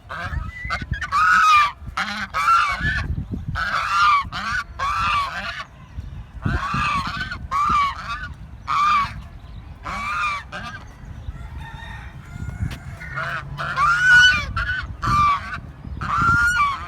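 Domestic geese honking: a long series of repeated loud, nasal honks, each about half a second, with short gaps between them.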